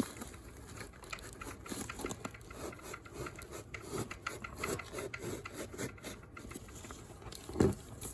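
Hands rubbing, scraping and rustling at a parcel's wrapping as it is worked open, in a string of small irregular scuffs and clicks. A louder thump sounds near the end.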